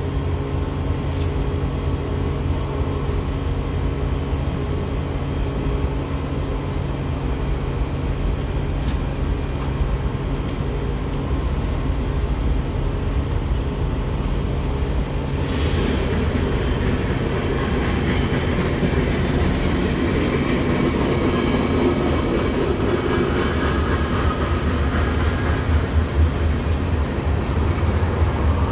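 A train's locomotive running with a steady low rumble and a constant drone of low tones. About halfway through, rushing noise from the train joins in, and the sound grows a little louder toward the end.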